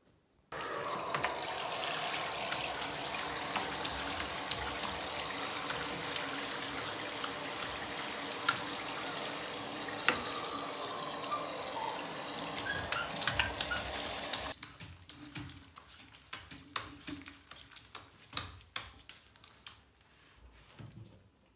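Hand-held shower head spraying water into a bathtub onto a puppy's feet, a steady hiss that comes on about half a second in and cuts off suddenly after about fourteen seconds. Then light dripping and small taps in the tub.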